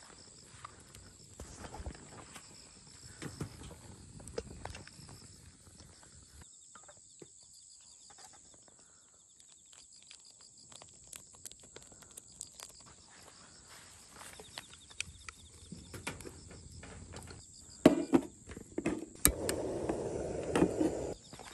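Crickets chirping steadily in the background, with scattered clicks and knocks of camp cookware and gear being handled. Near the end a louder rustling noise with a couple of sharp clicks.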